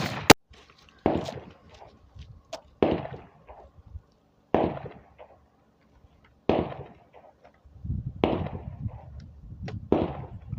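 A 20-gauge over-and-under shotgun fired repeatedly: sharp shots about every two seconds, each trailing off in an echo, the loudest crack right at the start.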